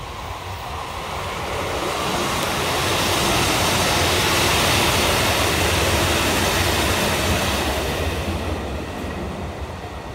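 JR Kyushu's Aso Boy, a KiHa 183-1000 series diesel train, running past close by. Its rumble and rail noise swell to a peak around the middle, then fade as it moves away.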